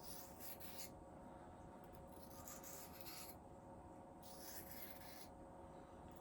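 Pocket knife blade stroked across a well-worn pocket sharpening stone: three faint strokes, each about a second long, with pauses between.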